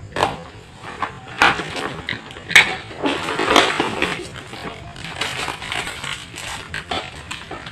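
A cardboard box and its packaging being handled and opened by hand: irregular sharp knocks and clicks, four stronger ones about a second apart in the first four seconds, with rustling in between.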